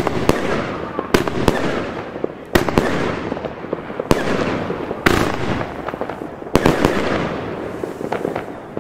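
Funke Kamuro fireworks battery firing its shots: sharp bangs, singly or in close pairs, about every second or so. Each bang is followed by a long fading hiss as the trailing stars burn out. The last bang comes about two-thirds of the way through, and the hiss dies down after it.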